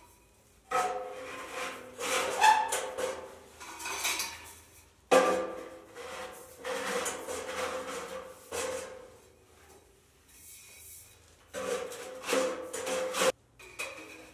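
Stainless steel flue pipe sections of a Gstove Heat View camping woodstove being slid and fitted together: metal scraping with a ringing tone, in four bursts separated by short pauses, ending abruptly near the end.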